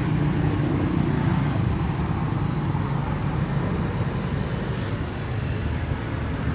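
Daewoo JX58LHP5-K refrigerator compressor running with a steady low hum.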